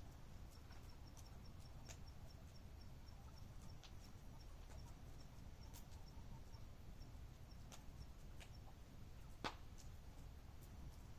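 Faint campfire crackling, with scattered sharp pops and one louder pop about nine seconds in. A rapid series of high, even ticks, like an insect chirping, comes and goes in the first few seconds.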